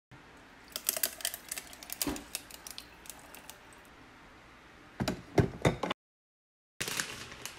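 Ice cubes clicking and crackling in a glass jar as coffee is poured over them, a run of small clicks with a louder cluster about five seconds in. Near the end, a plastic bag of frozen tater tots crinkles as a hand reaches into it.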